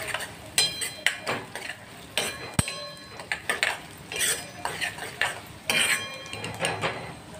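Metal spatula scraping and clinking against a black kadai as chopped onions and raw mango are stirred in hot oil, in irregular strokes. There is one sharp knock about two and a half seconds in.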